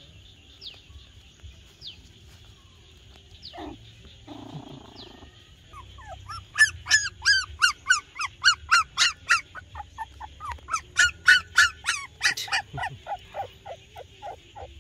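A young animal crying out in a rapid series of short, high-pitched yelps, about three a second, starting about six seconds in and lasting several seconds.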